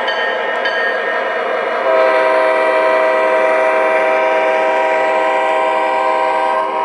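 Onboard sound system of an MTH RailKing O-scale SD45 model diesel locomotive playing running sounds, then about two seconds in a long multi-note diesel horn blast that holds steady for nearly five seconds.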